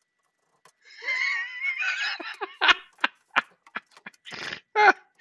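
A man laughing at his own joke: first a high, wavering, squealing laugh, then a string of short breathy chuckles.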